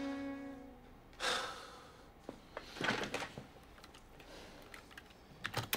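A man sighing heavily twice, about two seconds apart, then computer keyboard keys starting to click near the end.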